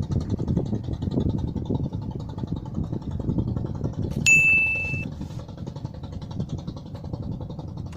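A steady low rumble, like a distant motor or wind, with one bright ding about four seconds in that rings out briefly and fades.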